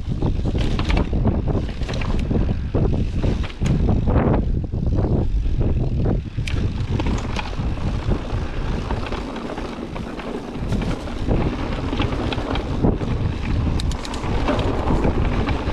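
Wind buffeting the microphone while a mountain bike is ridden over a rough track, with a heavy rumble and scattered sharp clicks and rattles; the buffeting eases briefly past the middle.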